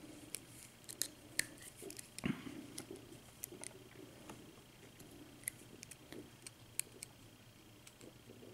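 Faint small metal clicks and scrapes of hand work at the retaining clip on the back of a euro half-cylinder lock, with one louder knock about two seconds in.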